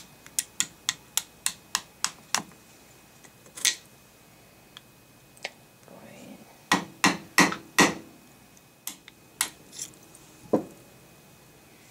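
Small hammer tapping a Glock punch tool to drive the pins out of a Glock pistol frame: sharp metal taps, a quick run of about eight in the first two and a half seconds, then scattered single taps and a cluster of louder ones about seven seconds in.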